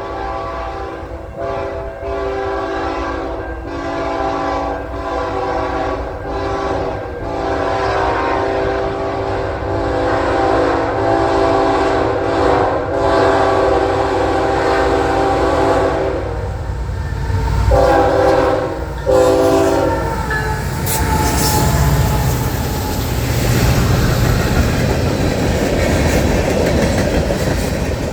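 Canadian National train horn, a chord of several notes, sounded as a long run of blasts with short breaks between them, then two short blasts. After that the horn stops and the passing train's rumble and wheel clatter carry on to the end.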